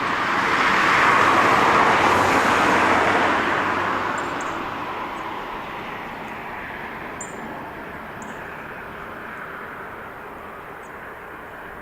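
A road vehicle passing by. Its tyre and engine noise swells to a peak a second or two in, then slowly fades away.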